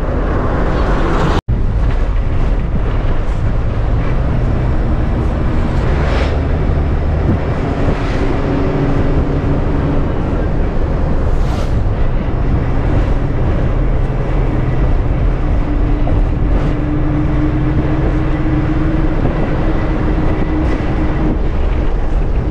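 Bus engine running and road noise heard from inside the moving bus, with the engine's tone shifting up and down as it changes speed. It drops out for an instant about a second and a half in.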